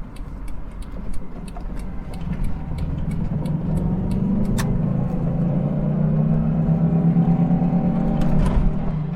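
1985 Subaru Vortex XT's flat-four boxer engine burbling as the car drives up a hill under load. The engine note builds and grows louder from about two seconds in, then holds steady.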